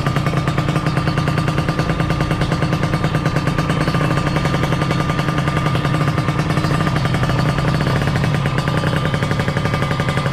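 Kawasaki Ninja R's 150 cc two-stroke single-cylinder engine running at a steady speed with a fast, even popping beat, on its test run after a major service. Its piston is worn and carbon-crusted and its cylinder scored, the cause of the engine's rough sound.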